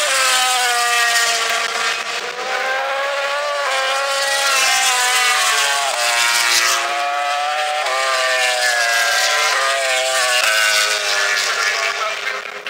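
MotoGP racing motorcycle engines at high revs on the track. The pitch climbs and drops again and again as the riders change gear.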